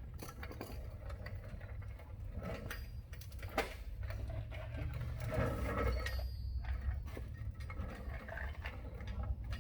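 Scattered small clicks and taps of metal carburetor parts being handled, while the float and needle are worked loose from the opened float bowl. A steady low hum runs underneath.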